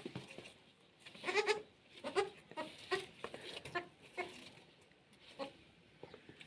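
Newborn goat kids bleating: a string of short, high-pitched bleats, coming thick through the middle seconds, with one more near the end.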